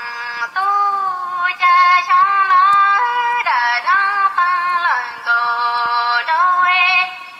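High-pitched singing: a melody of held notes that slide from one pitch to the next, fading out near the end.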